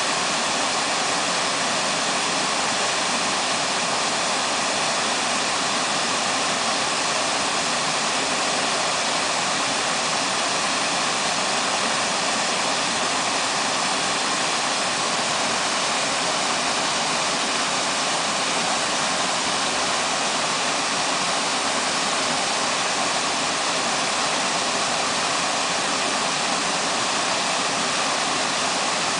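Waterfall rushing steadily: an even, unbroken hiss of falling water that holds the same level throughout.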